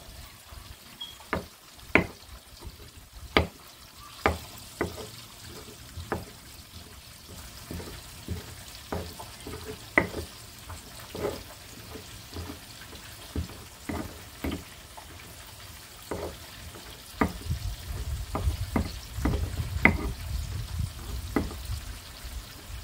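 Salsa being made: irregular sharp knocks and taps of kitchen utensils over a faint steady sizzle of frying. A low rumble comes in for a few seconds near the end.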